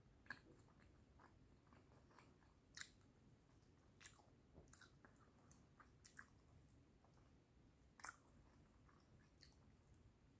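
Faint chewing and mouth smacks as a person gnaws meat off a pork rib bone: a handful of soft, short clicks scattered through quiet room tone.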